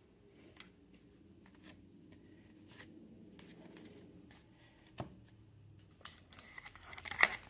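Trading cards and a foil card pack being handled: faint scattered taps and rustles, a sharp click about five seconds in, then crinkling that builds near the end as the wrapper starts to be torn open.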